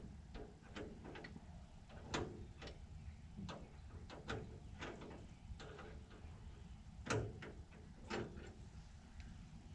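Irregular clinks and knocks of hand tools and fittings against the steel frame of a log skidder while a diesel fuel line is worked back into place. The sharpest knocks come about two seconds in and again about seven and eight seconds in.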